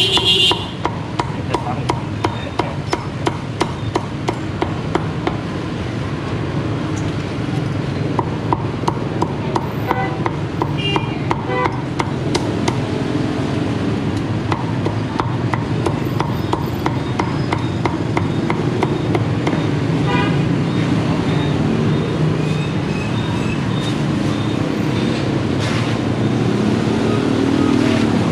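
Meat cleaver chopping roast pork on a thick wooden chopping block: rapid repeated chops, thinning out in the second half, over steady background noise.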